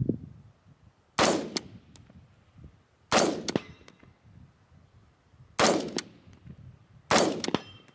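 Four single shots from an AR-15 rifle in 5.56, spaced about one and a half to two and a half seconds apart. Each is a sharp crack that dies away over about half a second, with a fainter click soon after.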